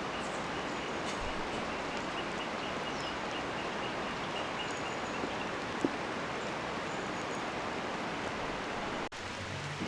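Steady outdoor ambience: an even rushing noise with a fast, faint high trill through the first half and a few scattered bird chirps, and a single click near the middle.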